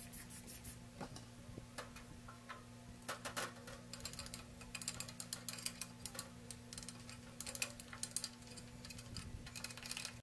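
Foaming engine cleaner on an aluminium motorcycle crankcase half fizzing as its bubbles pop: many small irregular clicks and crackles, thickest in the second half, over a steady low hum.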